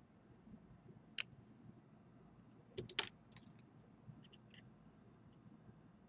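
Faint, sparse small metal clicks of a precision screwdriver against the screws and metal parts inside an opened iPhone 5S: a single click about a second in, then a quick cluster of the loudest clicks about three seconds in, followed by a few fainter ticks.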